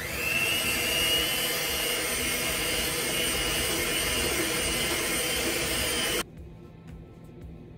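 Handheld electric mixer running steadily at speed, creaming butter and icing sugar in a glass bowl, then switched off suddenly about six seconds in.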